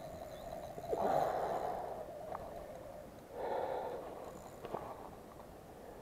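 A man breathing hard, with two loud breaths, the first about a second in and the second a little past the middle, from the strain of holding a hooked fish on the rod.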